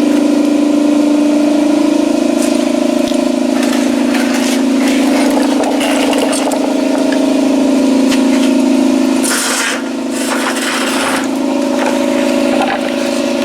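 Scraping and knocking of a tool prying a lawn-mower tire's bead loose from the rim, the densest run about two-thirds through, over an engine idling steadily.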